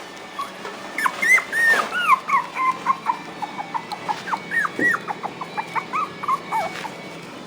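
A puppy whining and yipping in a quick string of short, high-pitched calls, starting about a second in.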